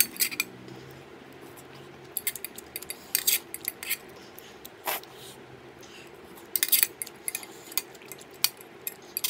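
A person chewing a mouthful of instant noodles close to the microphone, with scattered short wet clicks and smacks coming in small clusters.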